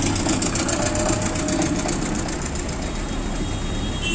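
Motor vehicle engine running close by with a rapid, even clatter, over the rumble of a busy street.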